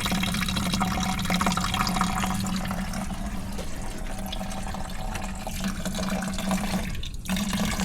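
Engine coolant draining out of a car radiator and splashing steadily into a bucket, with a brief break about seven seconds in.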